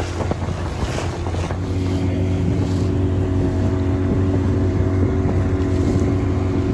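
Outboard motor of a small inflatable boat running at speed through choppy sea: a steady engine drone that gets louder about two seconds in, over the splash of waves against the hull and wind on the microphone.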